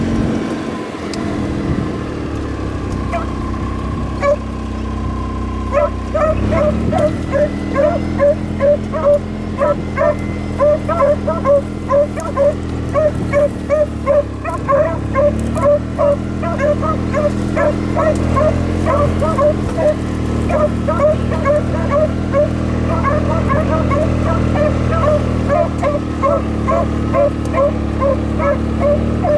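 Two beagles baying on a rabbit's scent: a few calls at first, then from about six seconds in a quick run of two to three calls a second. Under them is the steady running of the Kubota utility vehicle's engine.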